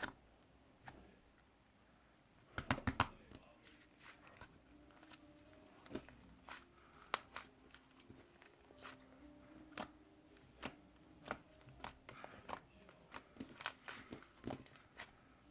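Irregular small clicks and taps, with a quick cluster of several knocks about three seconds in.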